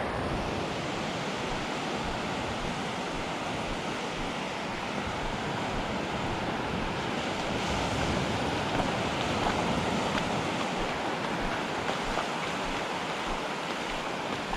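Ocean surf washing onto a beach, a steady rushing with wind on the microphone.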